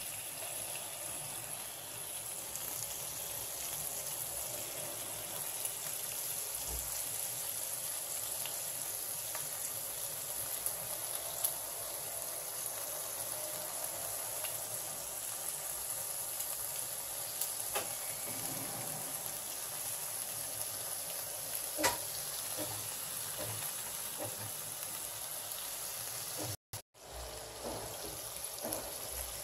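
Thin pork slices sizzling in hot oil in a frying pan: a steady hiss with a few sharp pops. The sound cuts out for a moment near the end.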